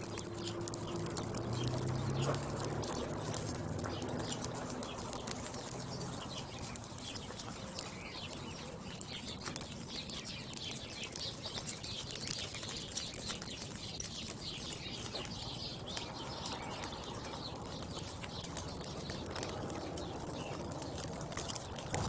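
Lakeside outdoor ambience with birds calling and fluttering, a dense, steady crackle of small sounds.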